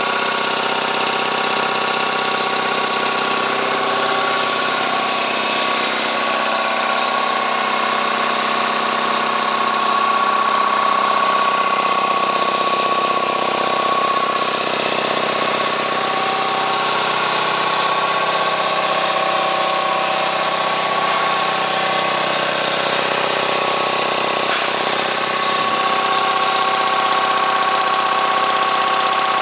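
Ingersoll Rand 60-gallon vertical air compressor, its belt-driven pump and 5 hp electric motor running steadily as it pumps up the tank, with a steady hum and whine.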